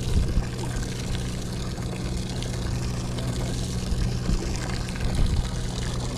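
Half-day sportfishing boat's engine running with a steady low hum, over water noise and a few short low thumps.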